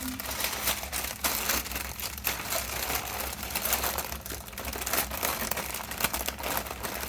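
Sheets of scrapbook paper being handled and shuffled through, with continual crinkling and rustling and many small irregular crackles.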